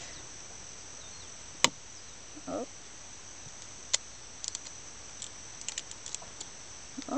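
An eggshell is cracked against the rim of a glass jar: two sharp clicks a little over two seconds apart, then a run of small crackles as bits of shell are picked off. A steady high-pitched insect drone runs underneath.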